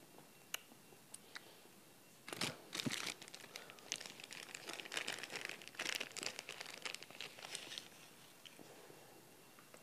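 Plastic ice-pop wrapper crinkling and tearing as it is opened, starting about two seconds in and going on for several seconds, after a few light ticks.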